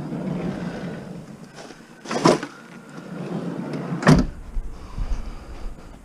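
Scrap items being handled: a scraping rustle, then two loud clunks about two seconds apart.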